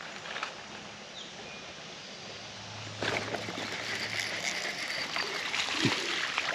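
Shallow creek water running steadily. From about three seconds in, a baitcasting reel is cranked to wind in a hooked fish, adding a fast ticking whirr over the water.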